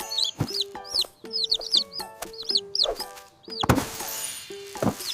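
Baby chick peeping: a string of short, high cheeps, about a dozen, over light background music. A brief rushing noise comes about three and a half seconds in.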